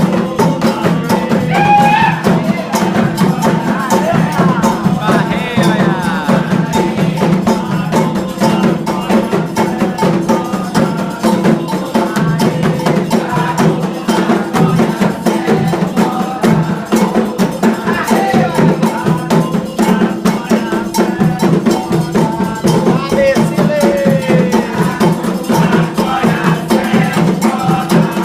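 Candomblé ritual drumming: atabaque hand drums and an agogô iron bell playing a steady, fast interlocking rhythm, with voices singing over it.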